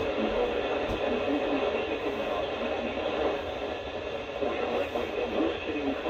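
Weather radio broadcast through a small speaker: a faint voice half buried in steady static from a weak signal.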